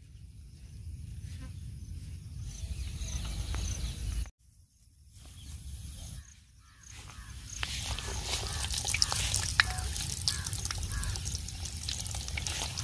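Breaded fish fingers deep-frying in hot oil in an iron kadai, crackling and sizzling with many small pops. The frying starts about halfway through and keeps up steadily after that.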